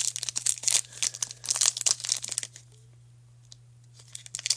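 Foil wrapper of a Pokémon TCG booster pack being torn open and crinkled, a quick run of crackles for about two and a half seconds, then a pause, then more crinkling near the end.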